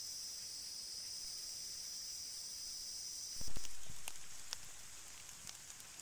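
Steady, high-pitched insect chorus that cuts off abruptly about three and a half seconds in with a short dull thump. A faint hiss with scattered light ticks follows.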